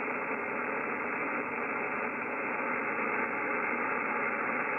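Steady static hiss from a Yaesu FTdx5000MP's HF receiver, cut off sharply above about 3 kHz. It is power line noise on the band, with the wide noise blanker engaged as its width setting is being turned down.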